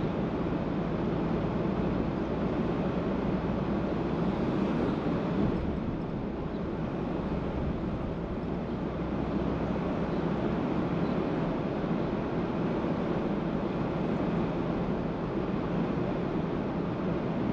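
Car driving along a road: steady tyre, wind and engine noise, easing slightly about six seconds in.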